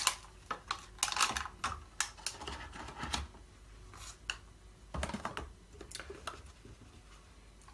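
Clicks and rustles of hands handling a clear plastic accessory tray and cardboard packaging: a quick run of short clicks, another cluster about five seconds in, then quieter.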